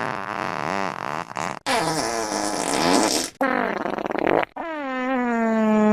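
Fart sound effects from the iFart app played back to back, four in all, each cutting off abruptly. The first three are noisy and wavering; the last is a long, pitched, buzzing fart that slides slightly down in pitch and grows louder.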